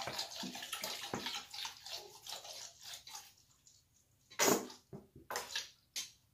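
Bath water swishing and splashing in a plastic baby bathtub as bubble bath is worked into it, with three short, louder splashes in the second half.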